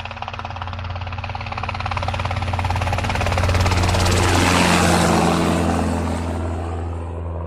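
An aircraft passing by: a fast, even chop that grows louder to a peak about halfway through, drops in pitch as it passes, then fades.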